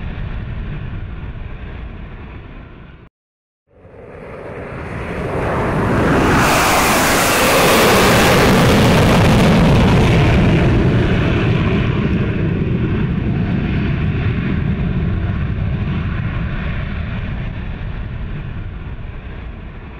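Fighter jets flying past overhead. A steady jet roar breaks off about three seconds in. Then a formation's roar swells over a couple of seconds, turns into a loud rushing hiss at its peak, and slowly fades away.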